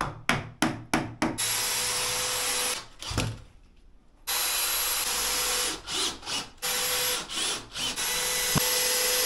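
Cordless drill driving screws through a timber door jamb into lightweight aerated concrete blocks, with no wall plugs. It runs in bursts: several quick trigger pulls, then longer steady runs of a second or more, with a pause of about a second around three seconds in.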